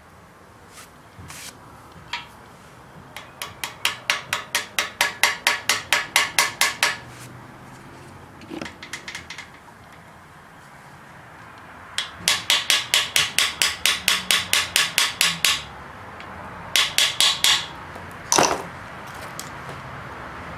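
Quick, even hammer taps in three runs of about four to five a second, then a single harder blow near the end.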